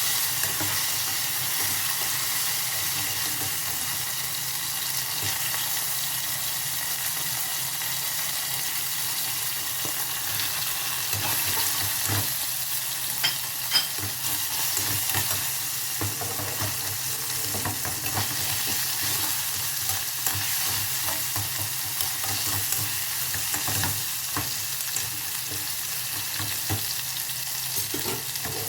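Vegetables sizzling and frying in a hot pan, a steady crackling hiss, with the occasional click of a utensil stirring them and a couple of louder clicks about halfway through.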